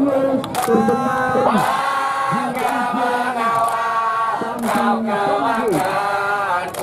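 A crowd of football supporters chanting a song together, many voices in unison with held notes, and a few sharp beats among them.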